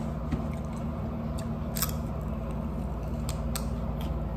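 Someone eating: a handful of sharp, separate clicks and mouth sounds over a steady low hum.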